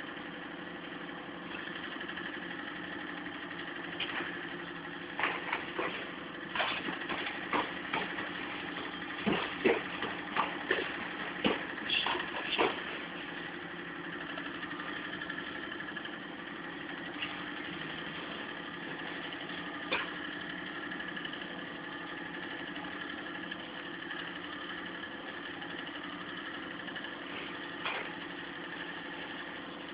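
Boxing gloves smacking in sparring: a run of about a dozen sharp glove impacts between roughly four and thirteen seconds in, then a single one near twenty seconds and another near the end. A steady machine hum runs underneath.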